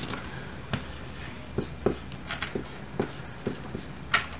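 Marker writing on a small whiteboard paddle: faint, scattered short strokes, with one sharper click near the end.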